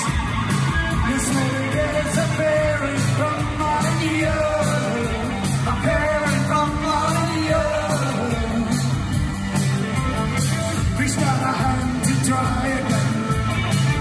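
A new wave band playing live: a male lead voice singing over keyboards and drums keeping a steady beat with regular cymbal strokes.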